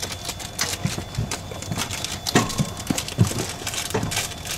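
Irregular clicks, knocks and rattles of medical gear being handled in an ambulance's patient compartment, as the crew unclip the ambulance's equipment from the patient on the stretcher to switch her over to the flight crew's.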